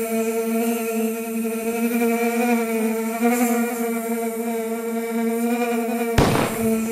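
A fly buzzing as a sound effect: one unbroken drone at a single pitch with a slight waver. Just after six seconds a sudden hit with a short noisy tail cuts across it, and the buzz carries on.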